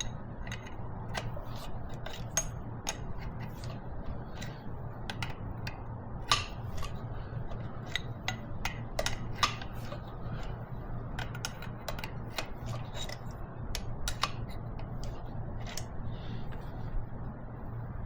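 Irregular metal clicks and clinks of a wrench working an injector hard-line fitting nut on a Kubota V2203 diesel, tightening a nut that had been left loose, over a steady low hum.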